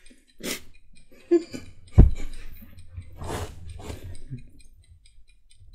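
People sniffing and blowing hard through their mouths and noses in short rushes, the reaction to the burn of an extremely hot chilli lollipop, with a brief whimper. A sharp thump about two seconds in is the loudest sound.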